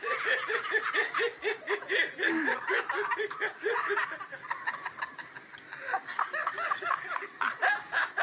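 Funny laughing sound effect: rapid staccato 'ha-ha-ha' laughter, about five bursts a second. A deeper laugh gives way to higher-pitched laughter about three seconds in.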